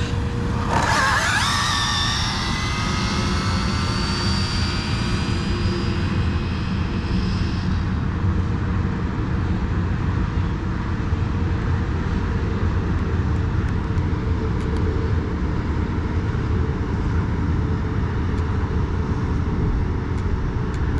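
Stock Arrma Infraction V2 RC car's brushless electric motor and drivetrain whining at speed as the car shoots past and races away. The high whine starts suddenly about a second in, slides down in pitch as the car recedes, and fades out after several seconds. A steady low rumble of wind on the microphone runs underneath.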